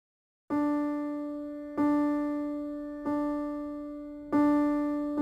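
Background music opening on a single piano-like keyboard note, repeated about every second and a quarter and fading after each strike, starting about half a second in.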